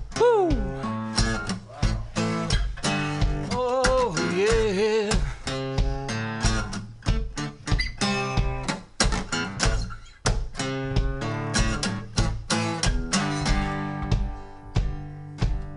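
An acoustic guitar is strummed in a steady rhythm, playing a song's opening. A voice sings a few wordless notes, sliding down near the start and wavering around four seconds in.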